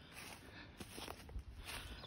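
Faint footsteps of a person walking on a dirt trail strewn with dry leaves and wood debris, with a few soft scuffs and ticks underfoot.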